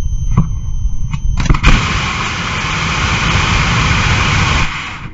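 Ethanol and liquid-oxygen rocket engine static firing, slowed to half speed: a couple of sharp pops, then a loud, steady hissing roar that holds for about three seconds and cuts off abruptly near the end. Wind rumbles on the microphone before ignition.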